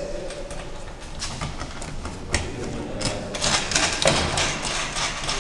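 Irregular clicks and knocks of tools and cooling tower parts being handled during assembly, getting busier about three seconds in.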